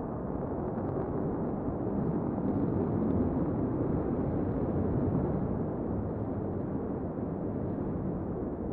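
SpaceX Starhopper's Raptor rocket engine firing: a steady, dense rumble of noise, heaviest in the low end, that swells slightly a few seconds in and eases a little near the end.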